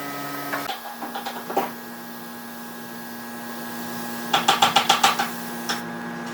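An electric power tool's motor running with a steady hum, its pitch dropping a little under half a second in. A few knocks follow, then a quick rattle of about eight sharp clicks near the end.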